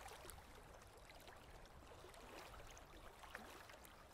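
Faint water lapping at the surface, small soft splashes and trickles over a low hiss.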